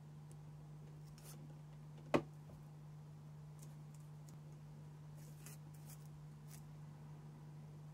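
Faint handling of a shrink-wrapped metal Blu-ray steelbook as it is turned in the hand: light plastic-wrap rustles and ticks, with one sharp tap about two seconds in, over a steady low hum.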